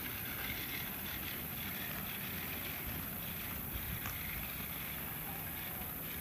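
Wind noise on the microphone, with a faint high whir that swells and fades from a toy RC car's electric motor running on the track.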